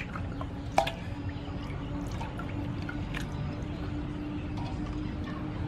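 Water sloshing and dripping in an aluminium basin as hands rub and rinse squid, with small wet clicks and one sharp knock about a second in. A faint steady hum runs underneath.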